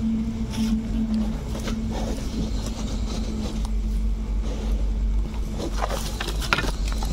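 Steady low mechanical hum with a held tone, with scattered scuffs and rustles near the end.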